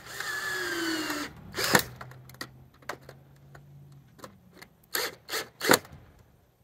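Cordless drill driving a screw into the eave fascia: the motor runs for about a second, its pitch falling as the screw bites and tightens, then stops with a sharp clack. A few more sharp knocks come near the end.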